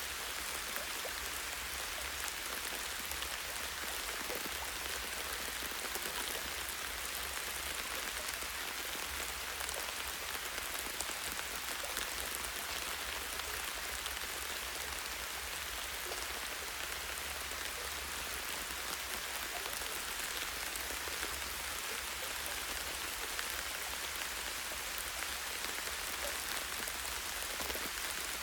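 Steady light rain falling on leaves and branches, a continuous soft hiss dotted with many small drop ticks, over a faint low rumble.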